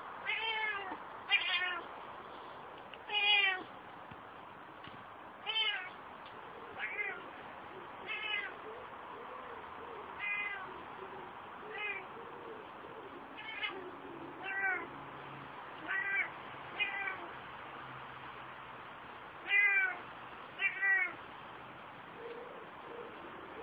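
An Ocicat meowing over and over: about fourteen short, arching meows, one every second or two, stopping near the end. The owner takes the calls for delight at being outdoors for the first time.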